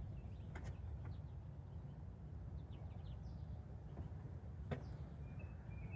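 Outdoor ambience: a steady low rumble with two sharp clicks and faint bird chirps, the clearest chirp near the end.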